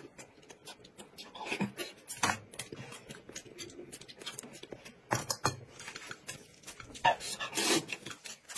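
Eating sounds: a spoon and chopsticks clicking against a plate and a small glass sauce jar in irregular short clicks, with chewing, and a mouthful of noodles slurped near the end.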